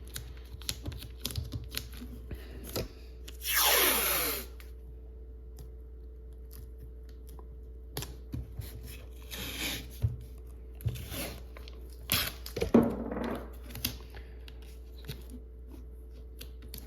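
Painter's tape being pulled and torn off its roll: a loud rasping peel lasting about a second, falling in pitch, then shorter rasps and scattered taps and rubbing as strips are pressed down onto scanner glass.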